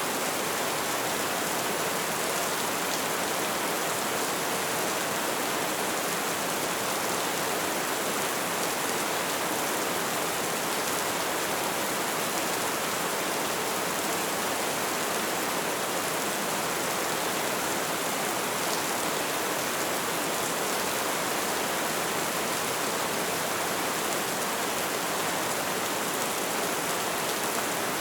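Steady rainfall, an even hiss that holds without a break.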